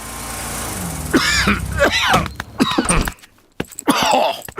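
Dr. Brown Bear, a cartoon bear, coughing several times in short voiced coughs, after a long rising hiss in the first second: he has caught Pedro's cough.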